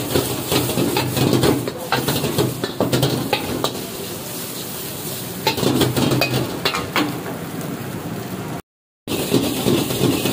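A steel ladle scraping and clanking against a large iron wok, stirring scrambled egg and vegetables that sizzle steadily in hot oil. The clanks come thick and fast, ease off briefly in the middle, and the sound drops out for about half a second near the end.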